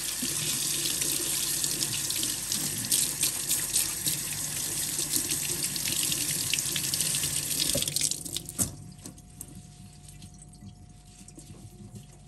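Kitchen tap running onto gloved hands rinsing peeled garlic cloves, the water splashing into a stainless steel sink. The water stops about eight seconds in, leaving a few small drips and clicks.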